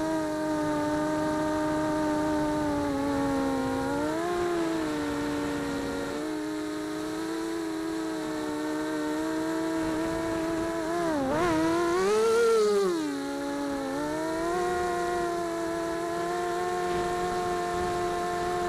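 Brushless motors and two-blade propellers of a small quadcopter, heard from its onboard camera: a steady whine whose pitch rises and falls with the throttle. A little past halfway it dips sharply, then surges louder and higher before settling back.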